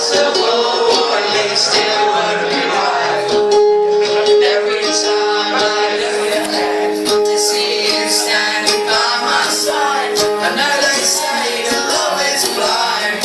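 Live acoustic song in an instrumental passage between sung lines: strummed acoustic guitar with a melody of held notes stepping from pitch to pitch.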